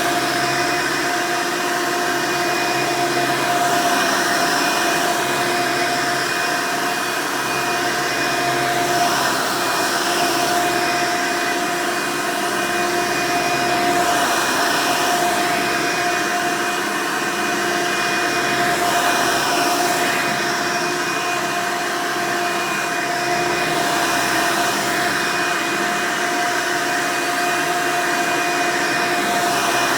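Hoover Elite upright vacuum cleaner running loudly and steadily, its motor and fan giving a steady whine over the rush of air.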